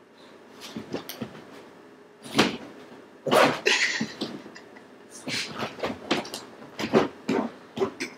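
Boston terrier pouncing and scrabbling on a futon mattress: irregular soft thumps and scuffles mixed with short snorts, the loudest burst a little over three seconds in.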